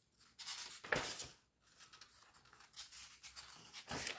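Pages of a hardcover book being turned by hand: paper swishing and rustling, with a light knock about a second in and another page turn near the end.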